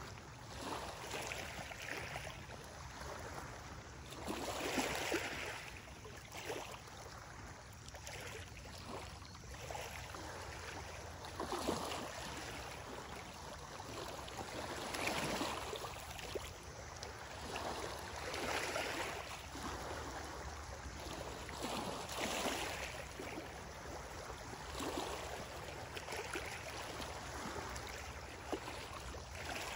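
Small waves lapping on a rocky lakeshore, a soft wash of water swelling up every few seconds.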